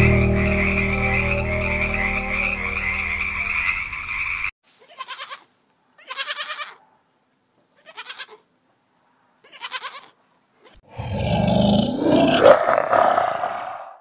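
Three animal calls in turn. First a tree frog calling with a steady trill for about four seconds. Then five short bleats from golden takins, about a second apart, followed by a longer, louder call from a giant panda cub.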